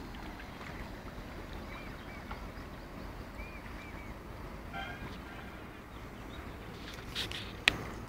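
Outdoor riverside ambience: a steady low rush of wind and the flowing river, with a few faint high chirps in the middle and two sharp clicks near the end, the second the loudest.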